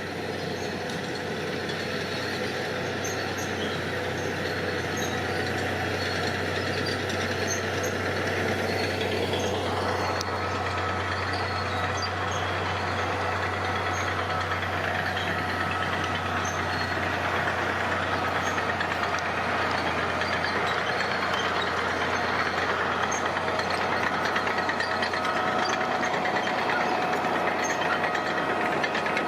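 Heavy construction machine's diesel engine running steadily, with a low hum and a faint whine that steps up in pitch about ten seconds in as the sound slowly grows louder.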